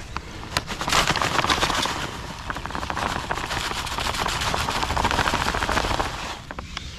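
Dry, dark method-feeder groundbait being poured from its bag into a container: a dense rush of crackling crumbs and particles that builds about half a second in and eases off near the end.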